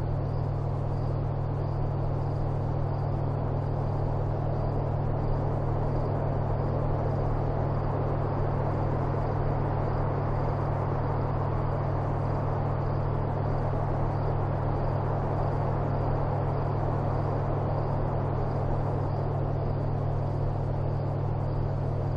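Steady low rumbling drone with hiss, unchanging throughout.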